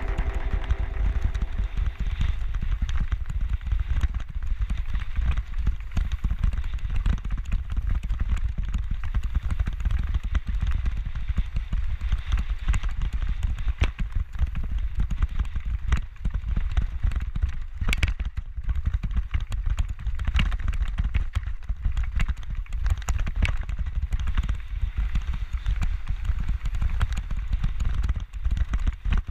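Mountain bike rattling over a rocky dirt trail: a dense run of knocks and clatter from the bike, over a steady low rumble of wind on the camera's microphone.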